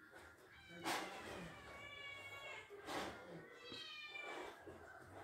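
Baby macaque giving a series of high, thin squealing calls about a second apart, several of them sliding downward in pitch.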